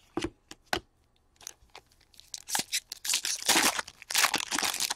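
Hockey trading cards and their packaging being handled by hand: a few soft clicks, then about two seconds of crinkling and rustling.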